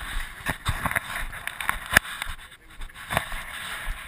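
Rubbing and knocking close to the microphone of a handheld action camera as it is moved about, with several sharp knocks, the clearest about half a second, two seconds and three seconds in.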